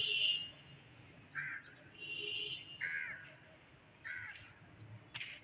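Crows cawing: about three harsh calls roughly a second apart, with longer, higher calls at the start and around two seconds in. A short sharp click comes near the end.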